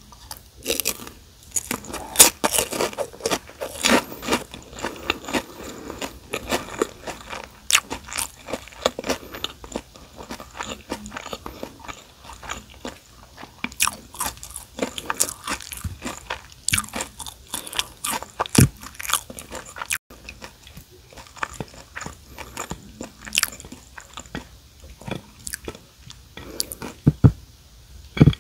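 Close-up eating sounds: crisp crunching and chewing of fried seaweed chips (gim-bugak) with kimchi fried rice, many irregular crackles, busiest in the first half. A couple of sharper knocks near the end.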